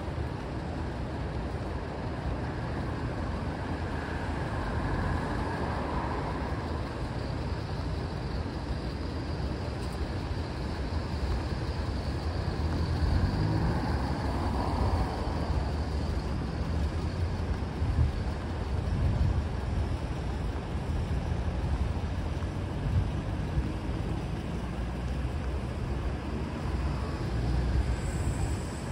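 City road traffic: a steady low rumble of cars and other vehicles passing, louder for a while midway.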